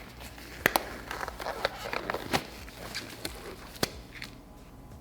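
Disposable exam gloves being pulled onto the hands: rubbery rustling and crinkling with several sharp snaps.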